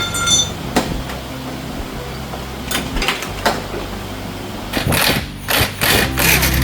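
Scattered metal knocks and tool clatter of suspension-bushing work, a few single strikes and then a quick run of them near the end, over a low steady hum.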